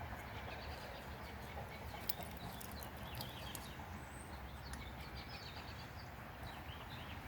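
Small birds chirping repeatedly in the background, with a few faint clicks and taps about two to three seconds in.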